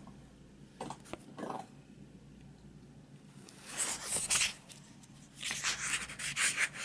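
Book pages turning and rustling as a hardcover book is handled. The rustling comes in two loud bursts in the second half, with a few faint short sounds before them.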